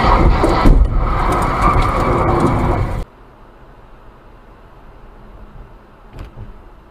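Loud rumbling and clattering inside a car, with sharp knocks, as it drives through a cloud of dust thrown up in a crash. It cuts off abruptly about three seconds in to a faint, steady car-interior hum, with a brief thump near the end.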